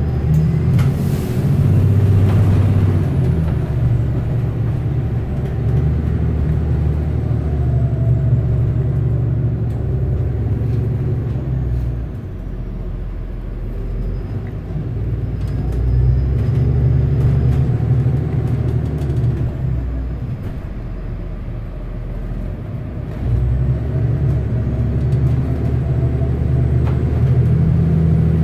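Cabin noise of SF Muni bus 8753 on the move: engine and drivetrain running with a low rumble and a faint whine that rises and falls in pitch as the bus speeds up and slows. It eases off about twelve seconds in and again around twenty seconds, then picks up sharply a few seconds later.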